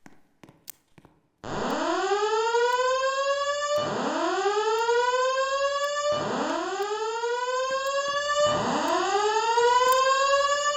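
Fire alarm voice evacuation system sounding its slow whoop evacuation tone between spoken announcements: four rising sweeps, each about two and a half seconds long, that start about a second and a half in after a few faint clicks.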